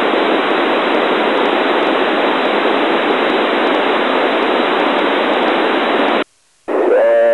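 Narrowband FM receiver static on the 145.800 MHz ISS downlink with no station transmitting: loud, steady hiss. About six seconds in it cuts off for a moment, then a signal comes back in carrying a steady tone.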